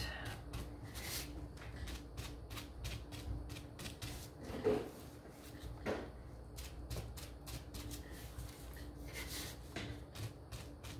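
Crumpled bubble wrap crinkling as it is dabbed and twisted over paint, a quick irregular run of small crackles, with a louder bump about halfway through.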